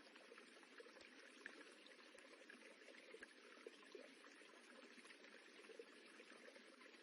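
Rippling running water: a faint, steady babble.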